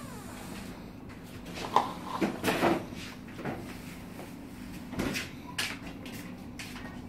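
Scattered light knocks and handling sounds, about six spread over several seconds, from hands sprinkling grated cheese onto a pizza base on a plastic tray, over a steady low hum.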